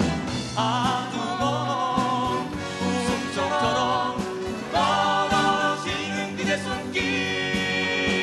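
Live performance of a Korean pop ballad: young female and male voices singing together, with instrumental accompaniment; a new, louder sung phrase begins about five seconds in.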